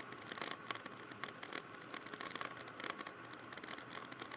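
Faint, irregular crackling and clicking over a low hiss.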